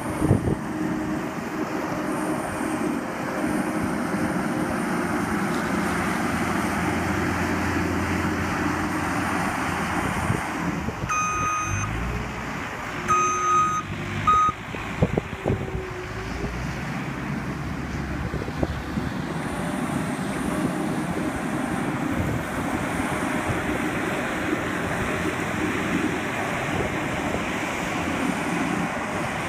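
Skid steer loader's engine running steadily under load, with a backup alarm beeping a few times about a third of the way through.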